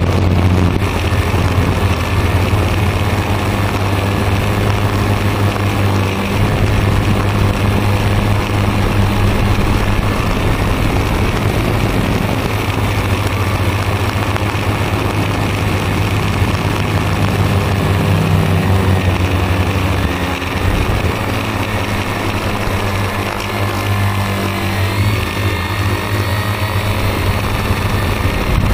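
Multirotor drone's electric motors and propellers buzzing steadily, recorded by its onboard camera, with small shifts in pitch as it manoeuvres.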